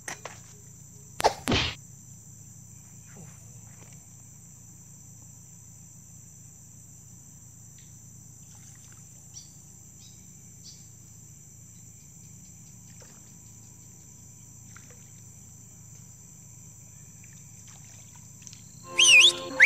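Steady high-pitched chorus of insects, such as crickets, with two sharp knocks about a second and a half in and a brief louder burst with quick chirps near the end.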